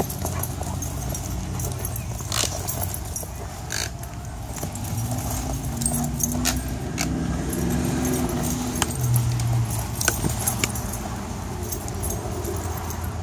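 Two dogs play-wrestling on leashes, with short low growls for several seconds in the middle and scattered clicks and jingles from collar and leash hardware, over a steady low rumble.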